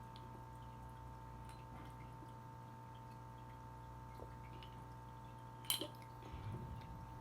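Quiet room with a steady electrical hum, a few faint small ticks, and one sharp click a little under six seconds in.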